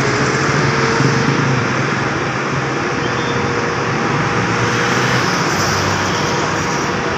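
Intercity buses running as they pull in one after another: steady engine noise, with a faint steady whine for the first five seconds or so.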